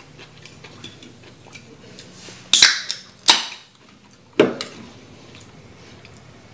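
Aluminium soda can being opened: the pull-tab cracks with a short fizz of escaping gas, a second sharp crack follows under a second later, and a single knock comes about four and a half seconds in.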